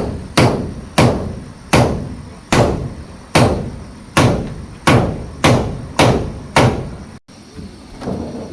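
A hand tool striking hard and repeatedly, about ten blows a little over a second apart, each with a short ringing tail; the series breaks off abruptly about seven seconds in.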